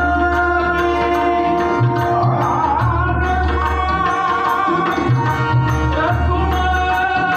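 Marathi devotional bhajan: a man singing in a strong voice over a harmonium, accompanied by pakhawaj and tabla. Deep pakhawaj bass strokes come in groups under the sharp tabla and pakhawaj strokes.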